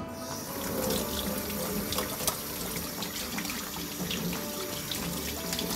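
Kitchen mixer tap running into a stainless steel sink, with hands being washed under the stream.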